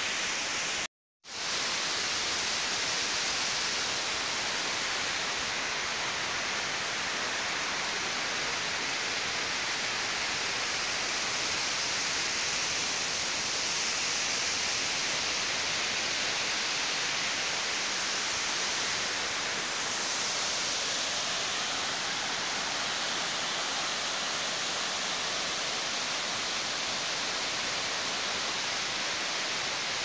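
A waterfall's steady rushing sound, with a brief total drop-out about a second in.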